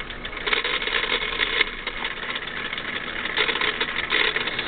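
Sunbeam electric clock movement running: its small synchronous motor and gear train make a continuous rattling, grinding buzz that grows louder for stretches about half a second in and again past three seconds. The noise comes from a damaged gear that the owner calls shot.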